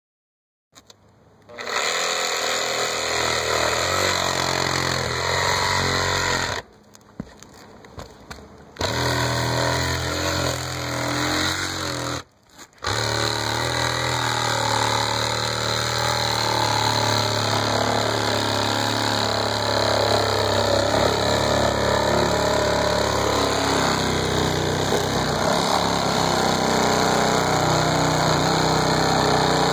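Makita cordless reciprocating saw running as its blade cuts through the asphalt shingles of a roof along a marked circle. It stops for about two seconds around seven seconds in and again briefly near twelve seconds, then runs on steadily.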